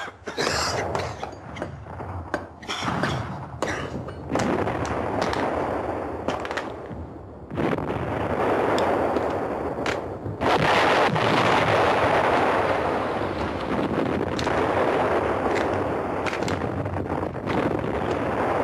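Battle sound of gunfire and artillery. Quick separate shots come first, then a continuous heavy din of firing and explosions that swells about seven and a half seconds in and again about ten seconds in.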